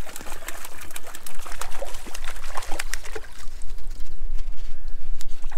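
Hooked brook trout thrashing at the lake surface during the fight: a run of small, irregular splashes and water spatter over a steady low rumble.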